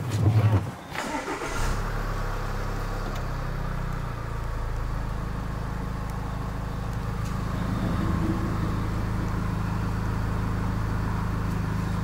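A thump, then about a second and a half in the Land Rover Evoque's engine starts and settles into a steady low idle.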